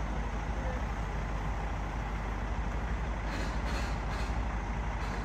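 Heavy diesel tow truck idling steadily, with a few short air hisses about three to four seconds in.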